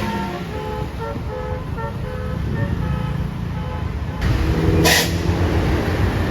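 Basuri telolet horn on a tour bus playing a tune of short, quick notes. About four seconds in a louder blast comes in, with a brief sharp hiss near the five-second mark.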